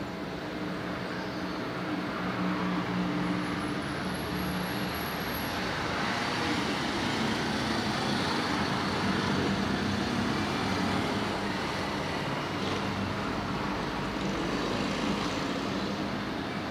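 City street traffic: steady road noise with vehicle engines humming, rising for several seconds in the middle as traffic passes.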